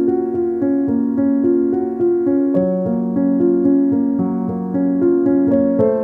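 Piano music: a slow melody over held chords, with new notes about every half second.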